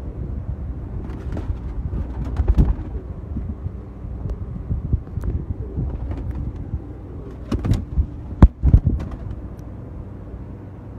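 Domestic pigeons cooing faintly over a steady low rumble of wind on the microphone, with a few sharp knocks around two seconds in and a louder cluster near eight seconds.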